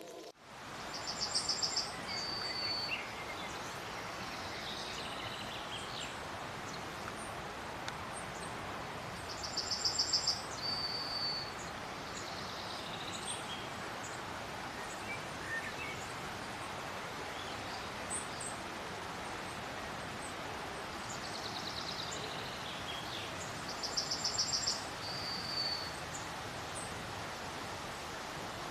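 A songbird sings the same short phrase three times, a rapid high trill followed by a lower held note, with faint chirps between, over a steady outdoor hiss.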